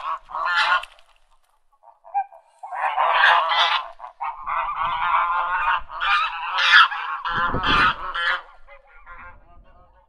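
Ducks quacking in runs of rapid, rough calls. A short run stops about a second in, then after a pause a long, dense run of quacks follows, trailing off into fainter calls near the end. A brief low rumble sounds under the calls late in the long run.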